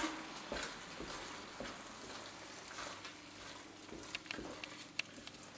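Wooden spatula stirring and folding sautéed porcini into simmering risotto in a stainless steel pan: a faint steady sizzle with soft scattered ticks and scrapes.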